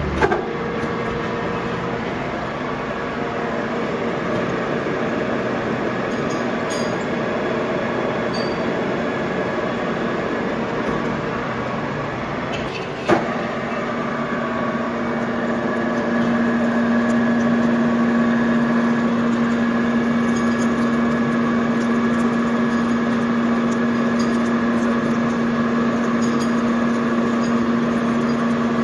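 Metal lathe running steadily while machining a worm shaft thread, a constant mechanical hum with several steady tones. A sharp click about 13 seconds in; from about 16 seconds a low tone grows stronger and the machine gets a little louder.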